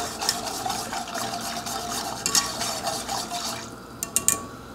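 Wire whisk stirring hot sugar syrup in a metal saucepan: a steady swishing and scraping of the whisk through the liquid and against the pan. It stops about three and a half seconds in, followed by a few sharp taps as the whisk is lifted out.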